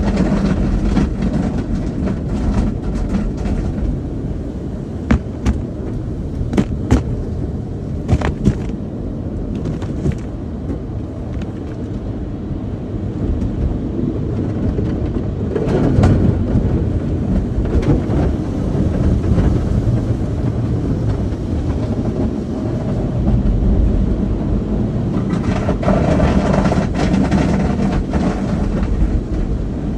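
Automatic car wash heard from inside the car's cabin: a steady low rumble of water spray and wash machinery on the body, with several sharp knocks a few seconds in. About halfway through it swells as the cloth brush strips sweep over the windshield.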